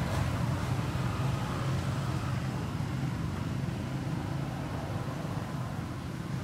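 Steady low rumble of vehicle traffic, easing off slightly toward the end.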